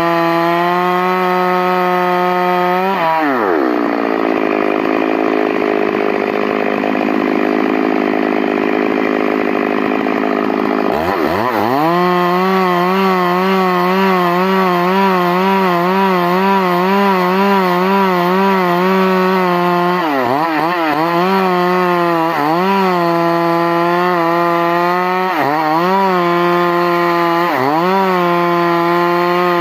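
Stihl MS 382 two-stroke chainsaw running at high revs; from about three seconds in, its pitch drops and a rasping haze joins it for about eight seconds as the chain cuts into wood, then the engine climbs back to high revs. In the latter part the revs dip briefly several times and recover.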